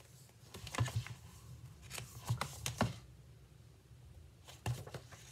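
Pages of a picture book being turned and the book handled: short paper rustles and soft knocks, in clusters about a second in, between two and three seconds in, and again near the end.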